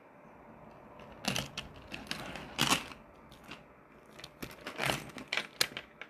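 Handling noise of a 3D-printed plastic clutch: scattered clicks, taps and rustles as it is held, turned and pressed, with the sharpest knocks about a second in, near the middle and toward the end.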